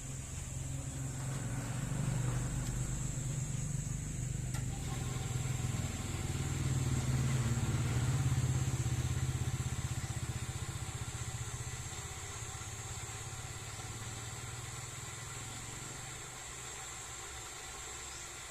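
A steady low engine hum, swelling to its loudest about eight seconds in and then slowly fading, over a faint steady high-pitched whine.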